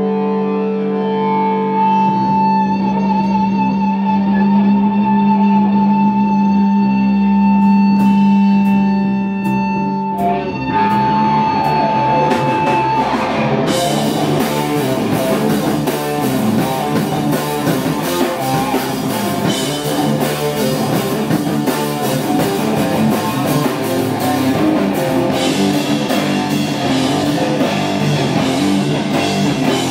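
Live heavy rock band: electric guitars and bass hold droning chords under a high, wavering sustained guitar note, with a few cymbal strikes. About eleven to thirteen seconds in, the drum kit and full band come in on a heavy riff, with steady cymbal and drum hits.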